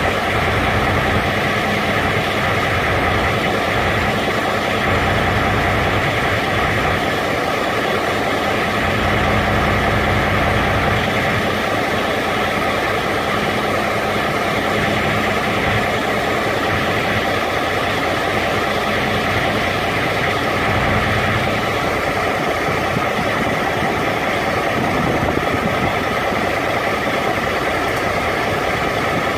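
Carrier Transicold XTC trailer refrigeration unit running steadily through its automatic pretrip test. Its engine and machinery make an even, continuous drone.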